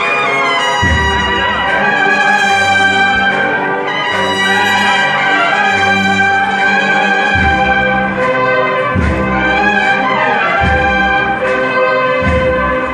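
Cornet and drum band playing a Holy Week processional march: massed cornets carry the melody over drums, with heavy bass-drum strokes about every second and a half in the second half.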